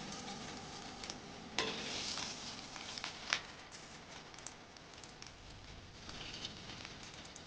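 Luncheon meat frying in a pan with a faint sizzle, and two sharp clicks of a utensil against the pan.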